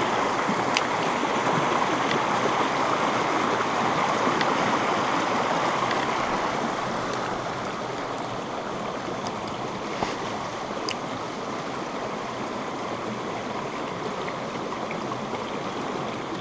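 Shallow stream running over rocks and gravel, a steady rushing water noise that eases a little about seven seconds in. A few faint light clicks sound over it.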